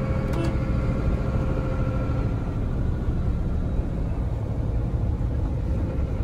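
BharatBenz 4228R truck's OM 926 six-cylinder diesel engine running steadily under way, together with road rumble. The faint engine tone fades into a broader rumble after about two seconds, and there is a light click about half a second in.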